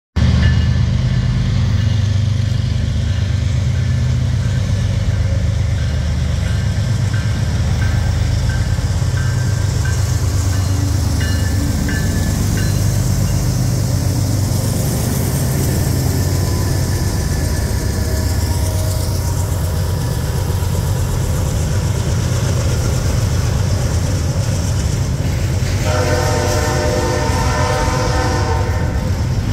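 BNSF freight train passing close by: diesel locomotives, then double-stack container cars, with a heavy, steady low rumble of engines and wheels on the rails. Near the end a locomotive air horn sounds a chord of several notes for about three seconds.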